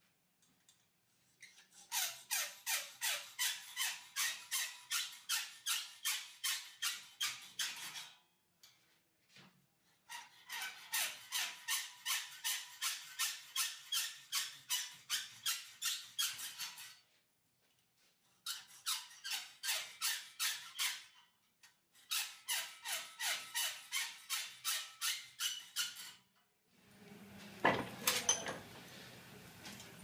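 Hacksaw cutting a perforated sheet-metal cable tray clamped in a bench vise: steady back-and-forth strokes, a little over two a second, in four runs with short pauses between. Near the end the sawing stops and there is a knock and some handling noise.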